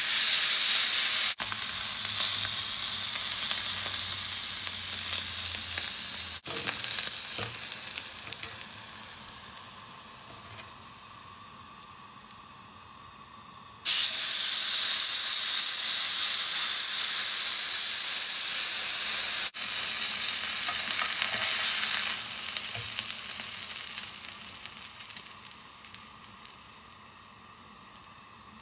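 Beef steak searing in a hot pan: loud sizzling as it goes in, dying down over several seconds, then a sudden fresh burst of sizzle about halfway through when it is turned over with tongs, fading again toward the end.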